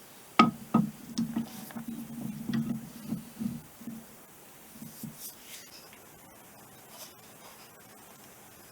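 Metal driveshaft parts being handled on a workbench: a sharp knock and a click, then a few seconds of rubbing and scraping that dies away about four seconds in, with a few softer scrapes after.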